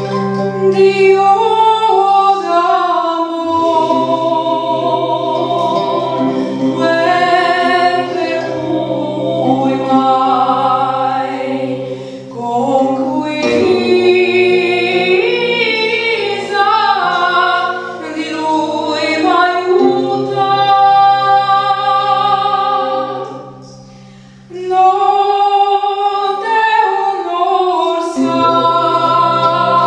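A woman singing a slow folk melody in a medieval style over a low sustained drone, with short breaks between phrases.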